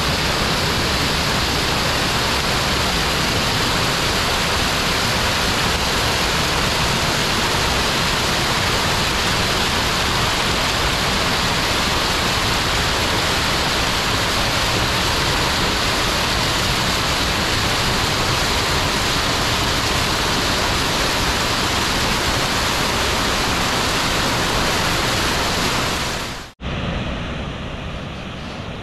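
A small mountain waterfall cascading over rocks into a pool, a loud, steady rush of water. About 26 seconds in it cuts off abruptly and gives way to a quieter, duller rushing sound.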